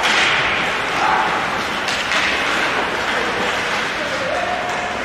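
Ice hockey play in a rink: a steady noise of skates on the ice, with a few sharp clacks and short shouted calls from players.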